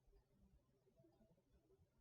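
Near silence: faint room tone in a pause between snores.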